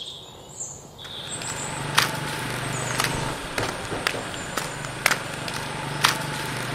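A steady low mechanical hum, like an engine running, starts about a second in, with a sharp click about once a second over it. A few faint high chirps come before it.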